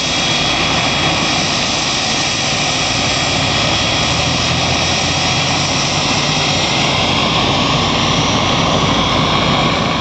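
Helicopter turbine engine running steadily on the ground, a thin high whine over a dense, even rotor and engine noise.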